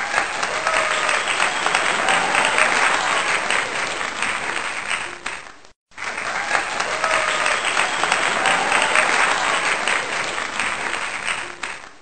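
Crowd applauding, with a few voices calling out; the same stretch of applause plays twice, broken by a brief drop-out just before the six-second mark.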